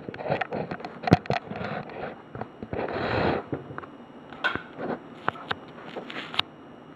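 Bush washing machine after its final spin: irregular light clicks and knocks, with a short rush of noise about three seconds in.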